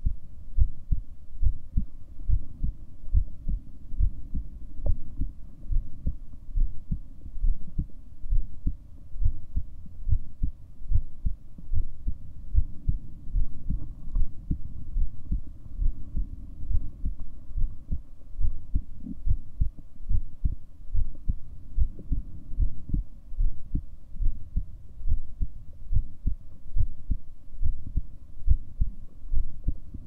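A human heartbeat recorded close up: low thumps repeating in a steady, even rhythm, over a faint steady hum.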